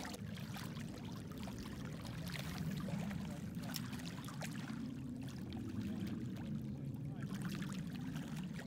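Small waves lapping and trickling over a pebble shore, with fine crackling splashes over a steady low rumble.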